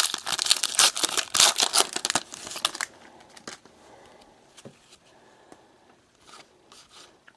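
Foil wrapper of a 2018 Panini Victory Lane trading card pack being torn open and crinkled for about three seconds, then quieter handling of the cards with a few light clicks.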